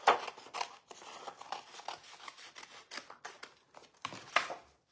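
Scissors snipping through designer series paper: a run of short, crisp snips with some paper rustle, the sharpest right at the start and again about four and a half seconds in.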